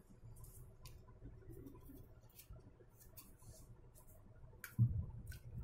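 Faint clicks and rustles of hands handling a small plastic bottle over a motherboard, with one dull knock near the end.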